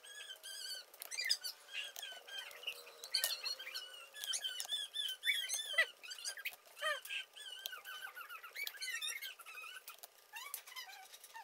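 Birds chirping: many short, high, squeaky calls overlapping one another.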